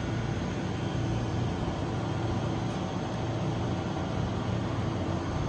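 Steady low mechanical hum with an even hiss, unchanging throughout, from a refrigerated vending machine's cooling compressor and fans.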